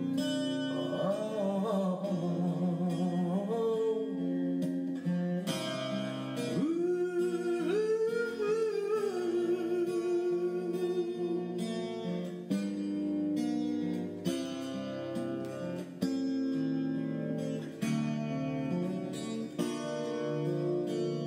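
Background song with plucked acoustic guitar chords and a singing voice carrying the melody in the first half.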